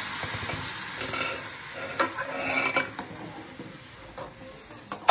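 Kadhi mixture being poured into a hot kadai and sizzling, while a steel ladle stirs it. The ladle clinks against the pan twice around the middle, and the sizzle dies down toward the end.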